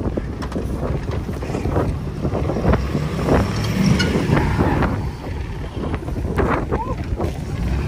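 Ford Super Duty pickup's Power Stroke diesel V8 running hard under load as it tows a stuck truck out on a strap, with wind buffeting the microphone.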